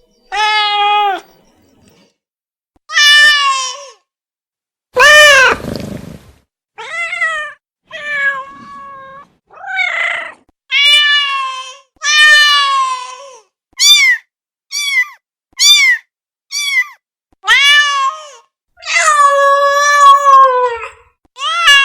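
A cat meowing over and over: a dozen or more meows of varying length, a run of short ones about a second apart, then a longer, drawn-out meow near the end that falls in pitch.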